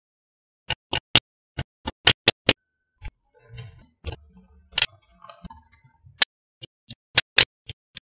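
Small metal magnetic balls snapping together with sharp, irregular clicks as rows and blocks of balls are pressed onto a slab of balls. A softer rustle of balls being handled fills a stretch in the middle.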